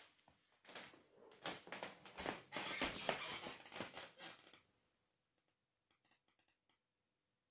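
Rustling and scratching of a nylon suitcase's fabric as a cat moves about inside its zippered front pocket, in quick scratchy bursts that are loudest in the middle, followed by a few faint ticks.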